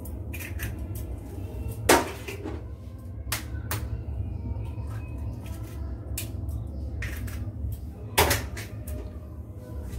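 Eggs being cracked on the rim of a small steel bowl: a sharp knock about two seconds in and another near the end, with lighter clicks of shell and spoon on steel between. A steady low hum runs underneath.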